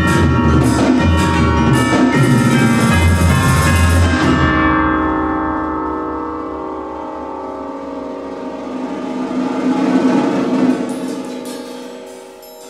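Percussion quartet playing fast accented drumming with chords on pitched percussion, which stops abruptly about four seconds in. The last chord is left to ring and die away under a soft drum press roll that swells and fades.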